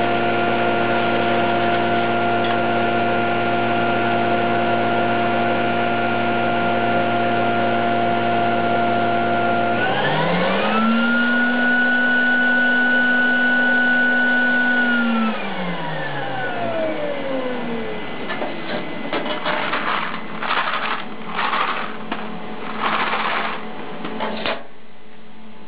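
Airpop popcorn vending machine running with a steady motor hum. About ten seconds in the hum rises in pitch, holds for about five seconds, then winds down over the next few seconds. Several short noises follow before the machine stops abruptly near the end.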